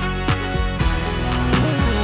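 Background music with a steady beat and bass line, a bass slide falling near the end.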